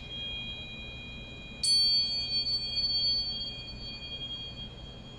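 High, pure ringing tones of a struck metal chime instrument sustain. A new strike about one and a half seconds in adds a brighter tone that rings on and slowly fades.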